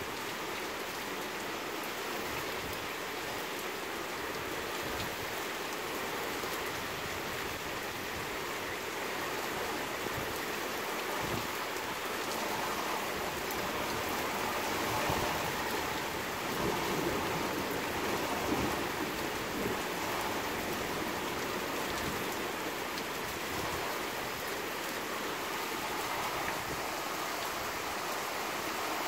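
Steady rain falling and pattering on leaves and surfaces, growing a little heavier for a few seconds in the middle.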